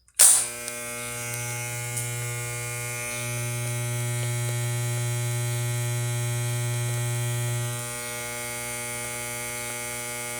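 Small electric hair clipper switched on and buzzing steadily, freshly adjusted after repair. The buzz gets a little louder for a few seconds in the middle, then eases slightly near the end.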